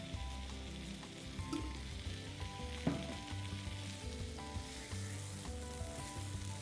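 Tomato masala and paneer sizzling in a frying pan as a little water is poured in, with a wooden spatula stirring and scraping through the gravy. Soft background music with held notes plays underneath.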